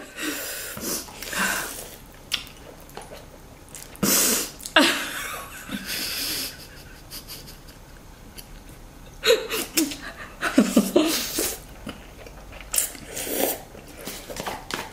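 Spicy instant noodles being slurped and chewed by two people eating fast, in several hissing slurps of a second or so with breathing between.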